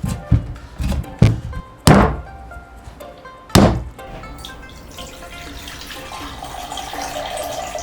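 Background music with kitchen work: four heavy thunks in the first few seconds, then a steady rushing noise that slowly grows louder.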